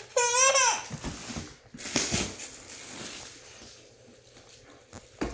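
A young child's short, high-pitched squeal, then metallic foil gift wrap crinkling and rustling as it is torn off a cardboard box, with a few light knocks against the box.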